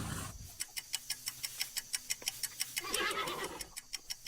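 Horse sound effect: hooves clip-clopping in an even rhythm of about four to five beats a second, with a short breathy horse call about three seconds in.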